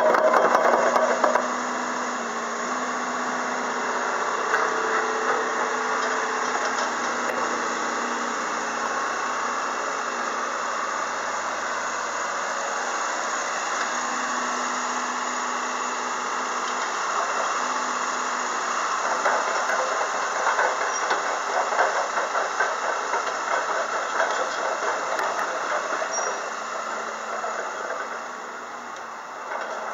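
Komatsu PC200-6 crawler excavator on the move: its diesel engine runs steadily while the steel tracks squeal and clank. The clanking is busiest in the second half, and the sound is loudest in the first second or so.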